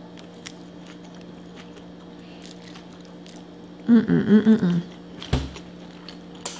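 Close-miked chewing of a mouthful of loaded cheeseburger fries: soft wet mouth clicks over a steady low hum. About four seconds in, a loud closed-mouth "mmm" that rises and falls in pitch, then a single dull thump.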